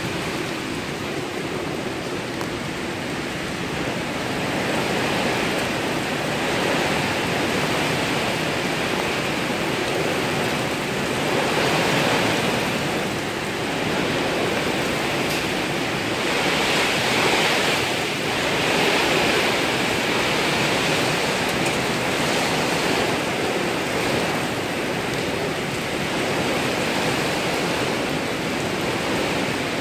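Heavy rain pouring onto a paved road and roadside trees, a steady hiss that swells and eases every few seconds.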